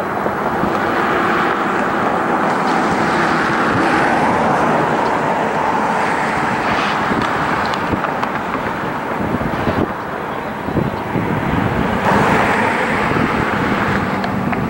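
EMD GP38-2 diesel-electric locomotive, its 16-cylinder non-turbocharged 645 engine running steadily while switching, growing louder about twelve seconds in as the locomotive moves.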